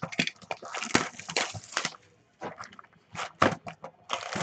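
Plastic shrink wrap crinkling and tearing as it is stripped off a cardboard trading-card hobby box, with scrapes and taps of the box being handled. A quieter gap about two seconds in, then more crackling and scraping.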